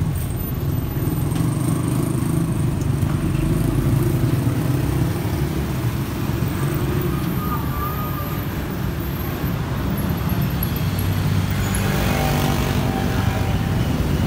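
A motor vehicle engine running steadily, with traffic noise around it.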